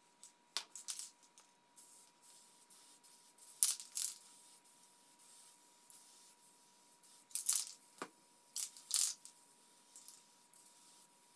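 Aerosol spray-paint cans hissing in about five short bursts, spraying blue and yellow paint onto the surface of a tub of water for hydro dipping.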